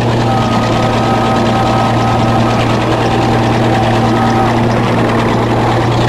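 Engine running steadily at one constant speed: a deep, even drone with a higher whine over it that stops about two thirds of the way through.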